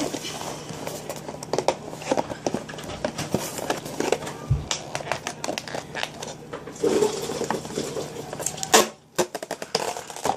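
Hands handling and opening packaging: a run of small clicks, taps and rustles as a box is pried open, with a brief low thump about four and a half seconds in and a sharp loud click near the end.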